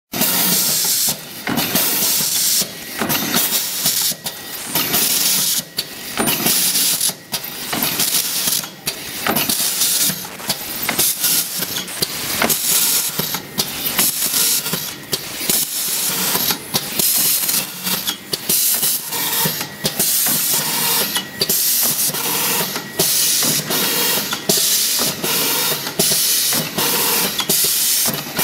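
Triangle tea bag packing machine running: a loud, steady hiss broken by short dips roughly once a second, with clicks from the mechanism as it cycles.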